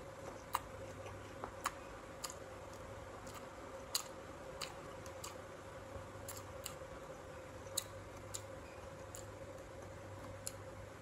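Close-up chewing of crisp raw fruit: sharp, irregular crunches and clicks, roughly one or two a second, over a faint steady hum.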